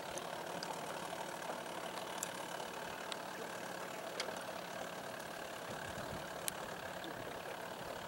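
Outboard boat motor running steadily at low speed: an even hum.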